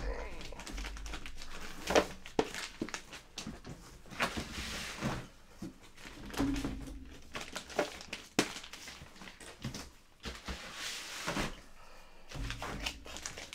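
Hard plastic CGC comic slabs clacking and knocking as they are handled and packed back into a cardboard shipping box, with some crinkling. The knocks come irregularly, the sharpest about two seconds in.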